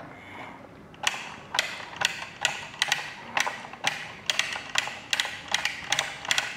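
A toy forklift's plastic lift mechanism clicking as its side knob is turned to crank the forks up. The clicks start about a second in and repeat evenly, roughly two a second.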